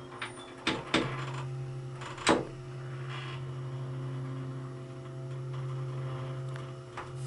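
Dover hydraulic elevator's pump motor humming steadily while the car travels, with a few sharp clicks near the start.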